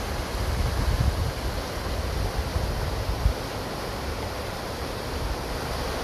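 Water pouring over a low weir and churning in the foaming pool below: a steady rushing hiss, with irregular low rumbling bursts underneath.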